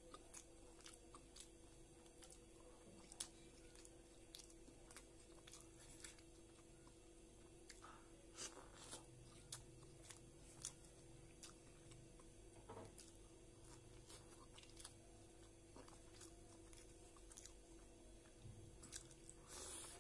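Quiet chewing of soft idli eaten by hand, close to the microphone: wet mouth sounds and lip smacks, with short sharp clicks scattered through. A faint steady hum runs underneath.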